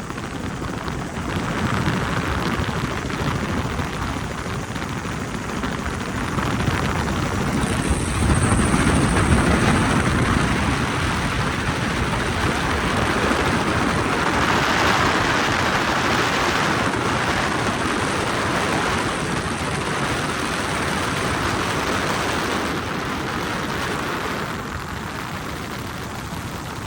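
Helicopter engine and rotor noise heard from on board, a steady loud rush that swells a little now and then.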